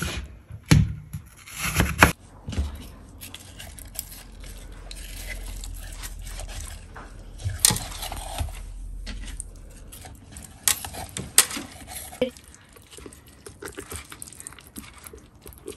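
Kitchen handling sounds: a few sharp knocks of a knife and apple pieces on a cutting board in the first two seconds, then hands pushing apple pieces into a raw whole chicken in a metal roasting pan, with soft wet handling noises and occasional clicks against the pan.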